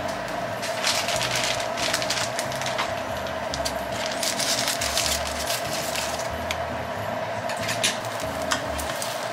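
Beaten egg sizzling in a rectangular tamagoyaki pan, with chopsticks and a spatula clicking and scraping against the pan now and then over a steady hum.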